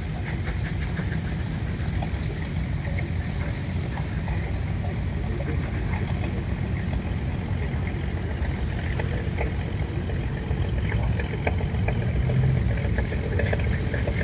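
Steam traction engine running, a steady low mechanical rumble with faint light clicks over it.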